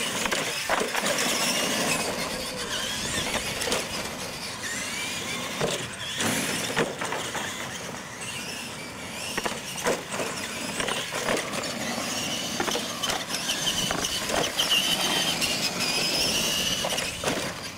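Radio-controlled monster trucks racing on concrete: a whine from their motors and gears that rises and falls with the throttle, broken by several sharp knocks as they hit the ramps and land.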